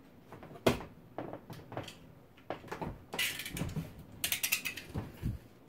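A sharp knock, then scattered small clicks and two quick runs of rapid ratcheting clicks, typical of a snap-off utility knife's blade being slid out notch by notch.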